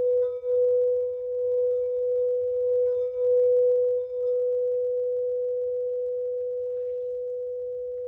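A steady pure meditation tone at about 440 Hz with faint overtones. It wavers and dips in loudness for about the first four seconds, then fades slowly and evenly.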